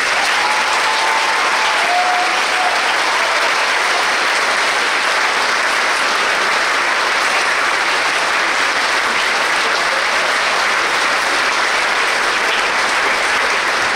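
A large audience applauding steadily, a dense even clapping that keeps the same level throughout.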